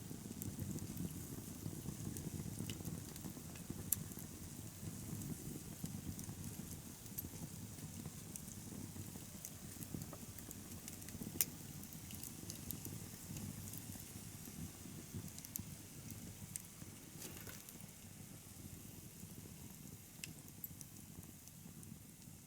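Wood bonfire burning: a steady low rumble of flames with scattered sharp crackles and pops every few seconds, the loudest about eleven seconds in.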